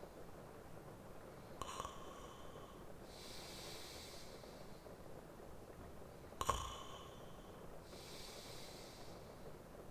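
A sleeping man breathing slowly: twice, about a second and a half in and again about six and a half seconds in, a short sharp snort, each followed by a soft hissing exhale.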